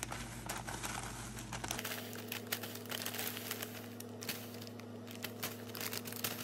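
A folded sheet of baking paper crinkling and crackling as almond flour is poured from it into a stainless steel mixing bowl, with a steady low hum underneath.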